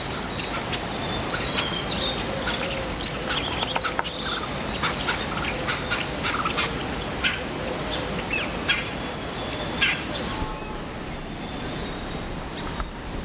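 Birds chirping and calling in short notes over a steady outdoor hiss, with scattered brief taps and clicks.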